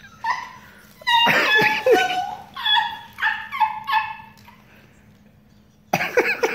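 A woman's high-pitched, squealing laughter: a loud burst about a second in, then a run of short breathless squeals about two a second, a pause, and another burst at the end.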